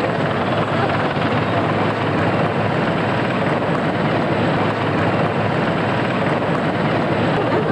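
Sikorsky CH-53 heavy helicopter hovering low over the sea, its six-blade main rotor and turbine engines making a steady, dense noise.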